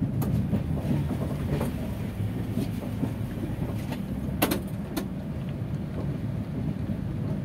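Passenger coach of the Chennai–Trivandrum Superfast Mail rolling out, heard from inside the coach: a steady low rumble with two sharp clacks about four and a half and five seconds in.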